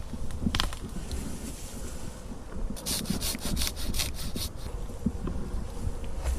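A handsaw cutting wood in a quick run of strokes, about five a second, for under two seconds in the middle, over a low wind rumble on the microphone.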